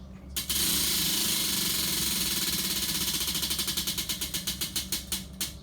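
Spinning prize wheel clicking against its pointer: a fast rattle of ticks starting about half a second in, slowing steadily until the wheel stops near the end.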